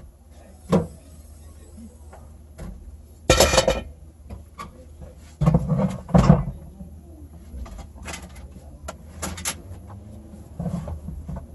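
A scattered series of knocks and clunks, the loudest about a third of the way in and twice more just past the middle, with fainter clicks between.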